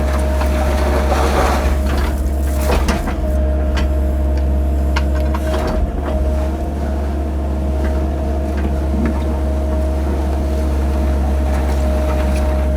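Mini excavator's diesel engine running steadily, with a steady whine over it and a few short scraping knocks as the bucket cuts down the grade.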